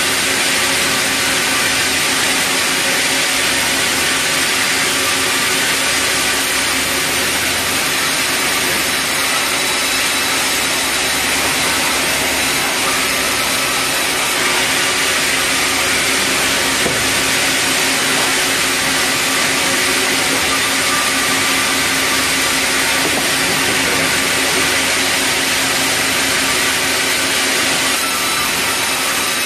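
Large vertical band saw running steadily while red meranti timber is fed through it to be sawn into boards. A continuous, even machine noise with a steady hum.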